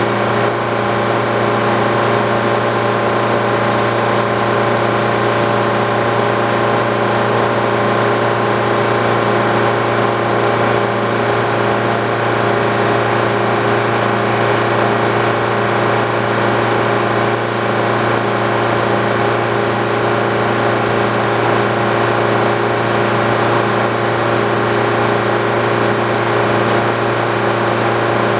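Old Frick sawmill and its power unit running steadily at constant speed, a continuous mechanical hum with no change in load.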